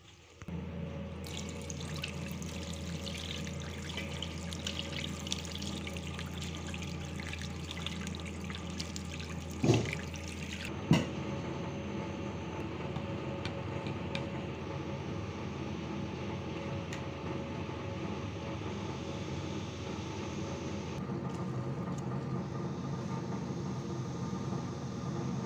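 Tap water running and splashing for about ten seconds as a raw mango is washed, over a steady low hum. Two sharp knocks come near the middle; the water then stops and the hum goes on.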